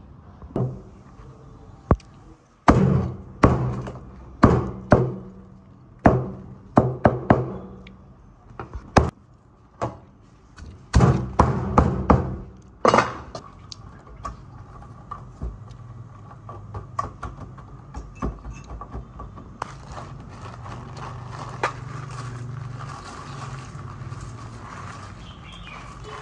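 A series of heavy, sharp thunks, about a dozen over ten seconds, each with a short ringing tail. Then lighter clatter of lemongrass stalks being laid in a stainless steel tray, with coarse salt starting to be poured over them near the end.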